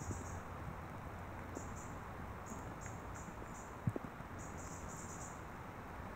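Raindrops clicking on the camcorder's external microphone over a steady hiss, with one sharper knock about four seconds in. Groups of short, very high-pitched pulsed chirps come and go several times.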